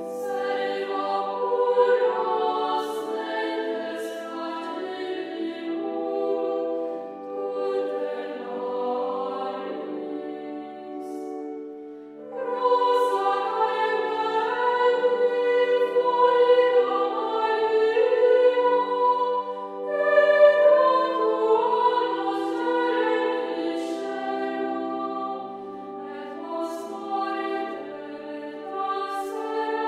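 Choral music: several voices singing slow, held chords that change step by step, growing louder about twelve seconds in.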